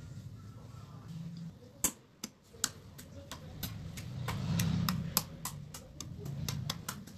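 Homemade pudding slime being squeezed and poked, giving sharp clicking pops, two or three a second, starting about two seconds in.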